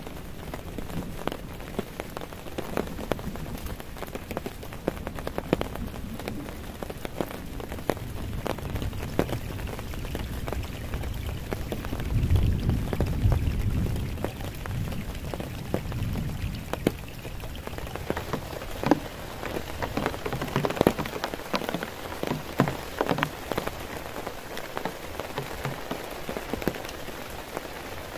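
Heavy rain falling on a tarp, with many sharp individual drop impacts over a steady hiss of rain. A low rumble swells for a couple of seconds about twelve seconds in.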